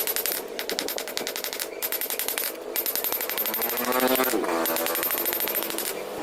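Hammer blows on a hot Damascus steel billet in a rapid, evenly spaced run, about ten a second, breaking off briefly twice.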